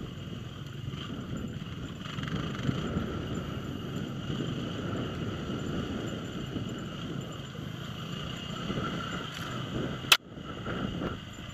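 Dirt bike engine running steadily while riding down a rough, rocky track, heard from a bike- or helmet-mounted camera. A single sharp click about ten seconds in.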